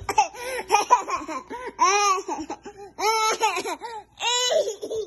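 A toddler laughing and squealing in several high-pitched bursts.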